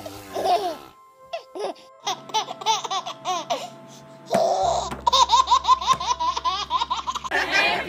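Babies laughing: a short burst of giggling at the start, then after a brief lull two longer bouts of rhythmic laughter, about four or five laughs a second.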